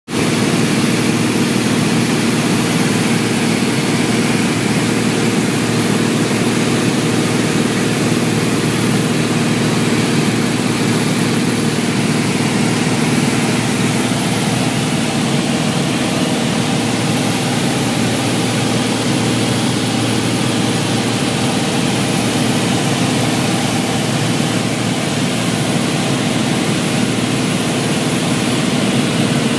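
Light aircraft's engine and propeller droning steadily in the cockpit, with a constant low hum and rushing noise throughout.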